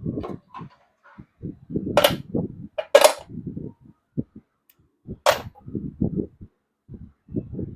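Short knocks and clatter of work on a small engine, with three sharp snapping cracks about two, three and five seconds in.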